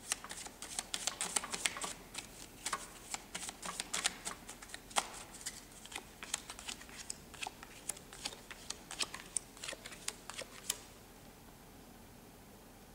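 A deck of playing cards being handled and shuffled in the hands: a run of quick, irregular card clicks and snaps that stops about eleven seconds in.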